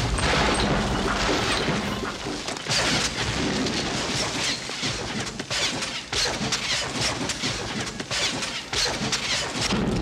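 Action-movie sound effects of a temple cave collapsing: continuous rumbling with many crashes and thuds of falling rock and debris.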